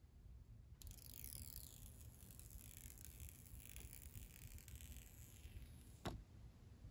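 The white protective film being peeled slowly off a new iPhone 15's screen: a faint crackling rustle lasting several seconds, ending in one sharp click about six seconds in.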